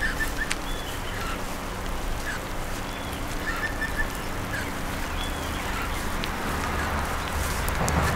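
Outdoor ambience: short, faint bird calls at scattered moments over a steady low rumble.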